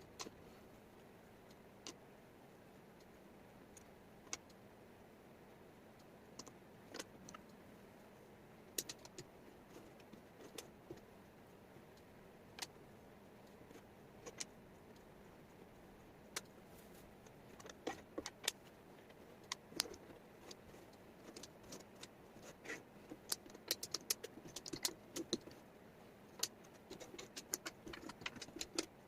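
Small wooden jigsaw puzzle pieces clicking and clattering as they are picked up and set down, a few scattered clicks at first and a busy run of them in the last third, over a low steady hiss.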